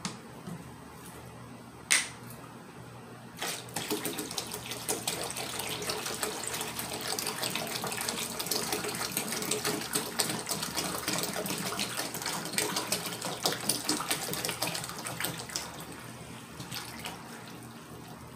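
Tap water poured from a plastic gallon jug into a plastic cloner reservoir, glugging and splashing. The pour starts about three and a half seconds in and tails off near the end, after a single sharp click about two seconds in.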